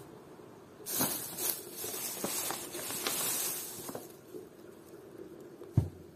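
Thin plastic shopping bags rustling as hands dig through them, for about three seconds from about a second in. Near the end, a single dull thump.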